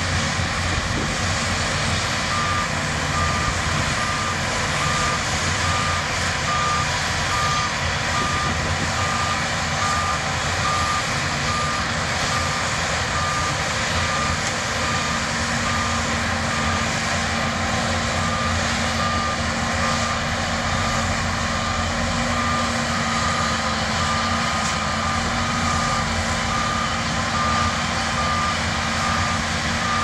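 Shantui DH17C2 bulldozers' diesel engines running under load as they push mud, with a reversing alarm beeping at an even rate from about two seconds in.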